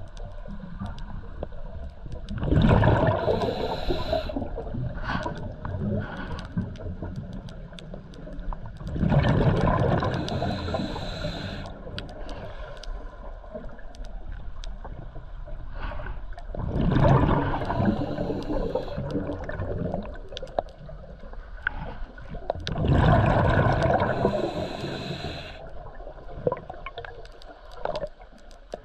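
Scuba diver's regulator heard underwater: four long bursts of exhaled bubbles about six to seven seconds apart, with quieter stretches between.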